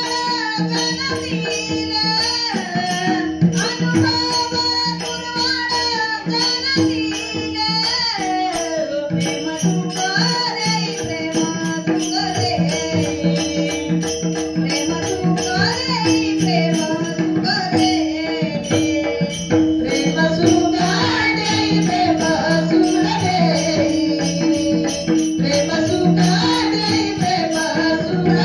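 Marathi devotional abhang sung by a bhajan group, a melodic vocal line over a steady held drone, with jingling percussion keeping a steady beat.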